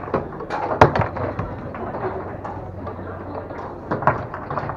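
Tornado foosball table in play: sharp clacks of the ball being struck by the foosmen and knocking against the rods and walls, with a pair of loud ones a little under a second in and another about four seconds in.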